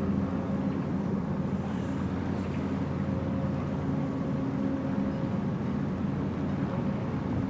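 Steady low engine hum of a passing container ship, several even tones held over a faint rumble.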